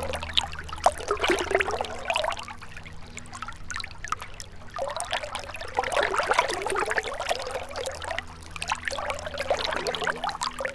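Gentle river water trickling and splashing, swelling and easing in waves, with a faint low hum underneath.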